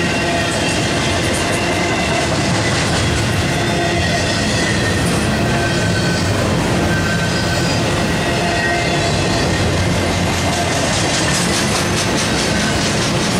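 Double-stack intermodal train's loaded well cars rolling by: a steady rumble and rattle of steel wheels on rail, with a run of quick clicks near the end.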